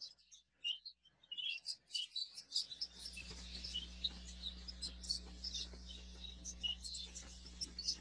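Budgerigars chirping and chattering in many short, high chirps, the steady twitter of a budgie aviary. A low, steady hum comes in about two and a half seconds in.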